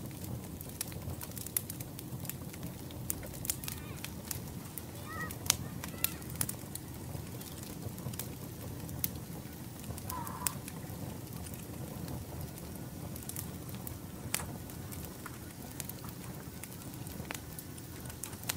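Wood campfire crackling: sharp pops scattered irregularly over a low, steady rumble of the flames.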